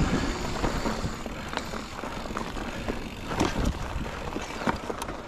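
Mountain bike rolling fast down a dirt trail: a steady rush of wind over the microphone and tyres on dirt, with scattered clicks and rattles from the bike over bumps.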